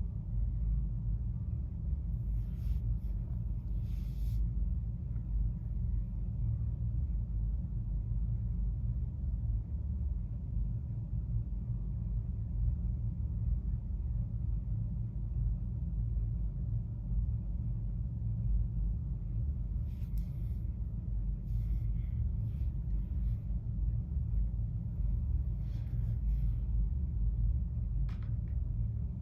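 A steady low rumble throughout, with a few faint, short high chirps of small birds at scattered moments, mostly about two to four seconds in and again in the last third.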